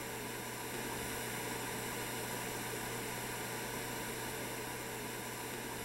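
Steady hiss of static-like noise with a low, even hum beneath it, unchanging throughout.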